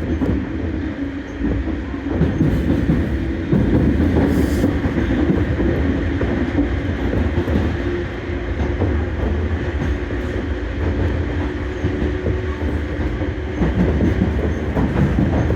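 Train running on track: a steady low rumble with a faint steady tone and scattered knocks from the wheels.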